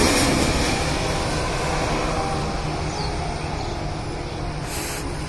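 Airbus A320 airliner passing low overhead with its landing gear down on approach to land. Its jet engine noise is a broad rumble that fades steadily as it moves away.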